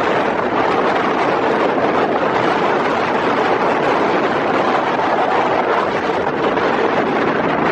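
Strong wind blowing, a loud, steady, even rushing noise with no breaks.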